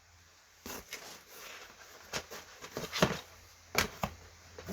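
DVD cases being handled and pulled out of a cardboard box: a run of about six short knocks and clicks with light rustling between them.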